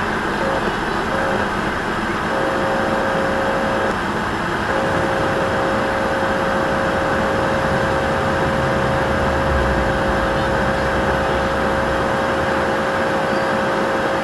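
Old television's static hiss: a loud, steady noise with a thin steady tone through it that drops out a few times in the first five seconds.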